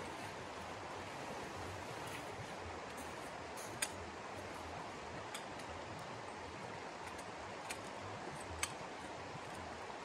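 Steady rushing background noise, with four short sharp clicks scattered through the middle, the first and last the loudest.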